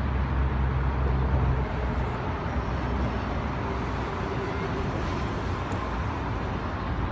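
Steady city traffic noise, with a low rumble that is heavier for the first couple of seconds.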